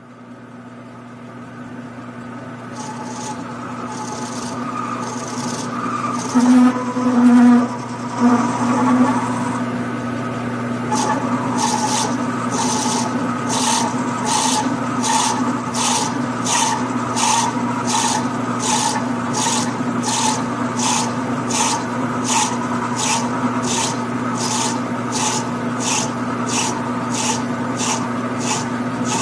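Grizzly G9972Z metal lathe running with a steady hum that grows louder over the first few seconds. From about a third of the way in, a regular scraping stroke repeats about one and a half times a second, as the cutting tool works the spinning brass valve body.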